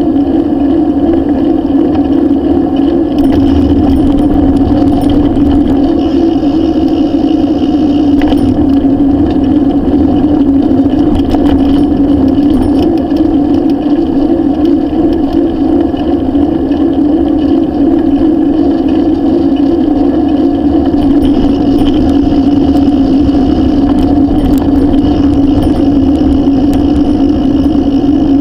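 Steady road and wind noise of a bicycle riding along an asphalt road, picked up by a camera mounted on its handlebar: a constant, even hum with a low rumble underneath.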